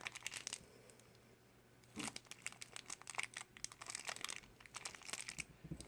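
Thin plastic wrapper crinkling and tearing as it is pulled open by hand: a brief crackle at the start, a short pause, then steady, faint crinkling from about two seconds in.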